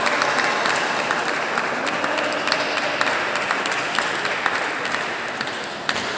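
Audience applauding, a dense patter of many hand claps that slowly dies down toward the end, with one sharper knock just before it stops.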